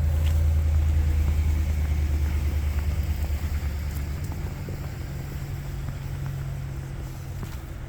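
Low engine rumble of a car on a snowy street, fading away about four seconds in, over faint city street noise.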